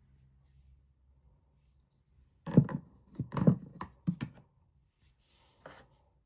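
Hard objects being handled and set down: a quick run of about six sharp clicks and knocks, then one more near the end.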